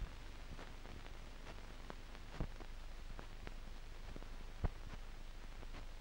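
Faint hiss and low hum with scattered clicks and pops, two louder pops a little before halfway and about three quarters through: the surface noise of an old film recording.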